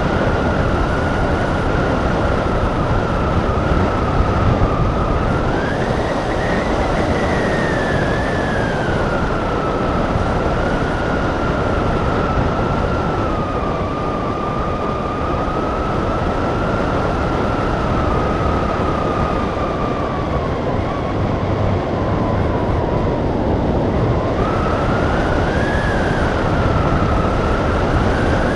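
Wind rushing past a hang glider in flight, with a whistling tone over it that slowly drifts up and down in pitch, rising twice, about 6 s in and again near the end.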